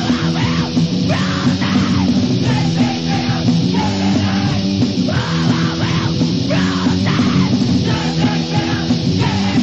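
Fast, loud crust-punk song from a compilation cassette: distorted electric guitars, bass and drums with shouted vocals.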